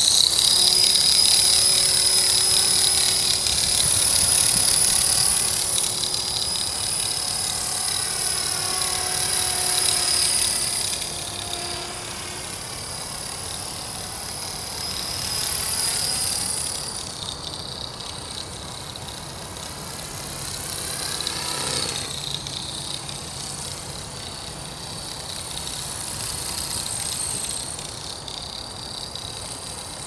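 Accurate 400 RC helicopter flying, its motor and rotor giving a steady high-pitched whine with several tones. It swells and fades in level as the helicopter moves about and grows fainter overall as it flies higher. The helicopter is running with an abnormal noise and vibration left from a crash.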